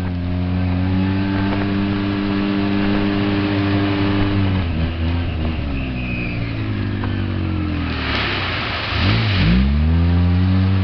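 Polaris RZR side-by-side's engine running steadily under throttle, its pitch falling as it slows about four and a half seconds in, then dropping low about nine seconds in before rising sharply as it is revved again. A rush of splashing mud and water comes about eight seconds in.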